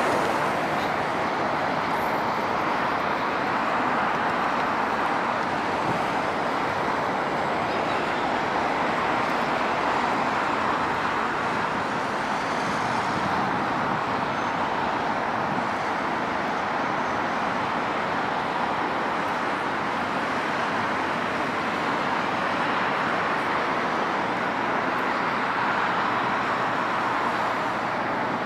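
Steady, even background roar of road traffic mixed with distant jet engine noise, holding the same level throughout.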